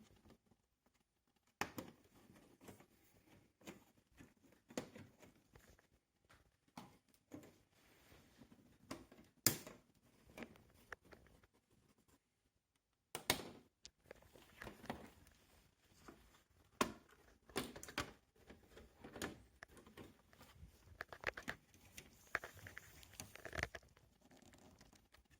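Scattered light clicks, taps and rustles of hands handling plastic TV parts during disassembly, with a sharper knock about nine seconds in and another about thirteen seconds in.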